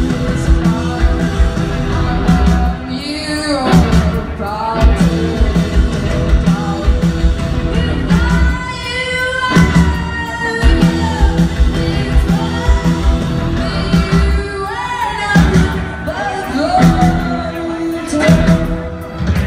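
Live rock band playing: a woman singing lead over bass guitar and drums, with a steady beat.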